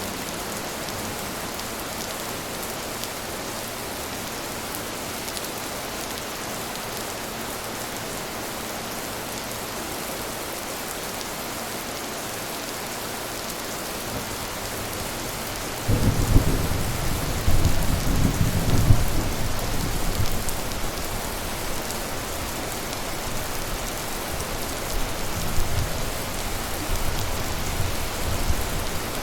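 Steady rain falling, with thunder breaking in suddenly about halfway through and rumbling for several seconds. The rumble fades, then swells again near the end.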